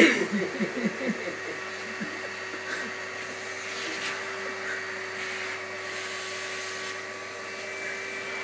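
Vacuum cleaner motor running with a steady whine, with a brief stretch of voice-like sound in the first second or so.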